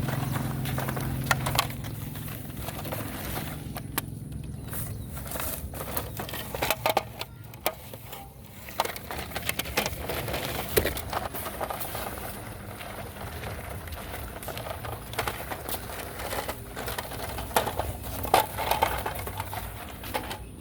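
Small model (RC) construction vehicles working dirt, with scattered clicks and knocks throughout. A low motor hum fades out in the first couple of seconds.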